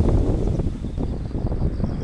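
Strong wind buffeting the microphone: an uneven, rumbling noise that rises and falls in gusts.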